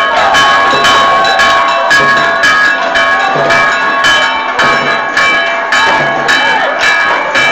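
Church bells pealing in a fast, continuous festive ring: several bells struck in rapid succession, several strokes a second, with a deeper bell sounding about once a second.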